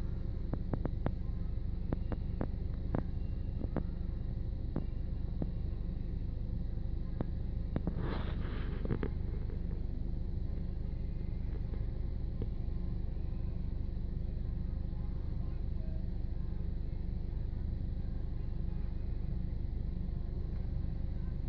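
Steady low rumble heard from inside a car's cabin. There is a scattered run of light clicks over the first five seconds or so, and a short rustling noise about eight seconds in.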